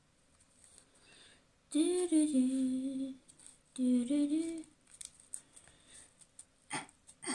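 A person humming a short tune without words in two phrases, the first about two seconds in and the second shortly after. Two light taps follow near the end.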